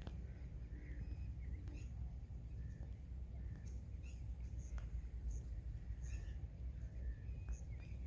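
Scattered faint bird chirps over a steady low rumble of wind on the microphone, with a thin, steady high-pitched tone running underneath.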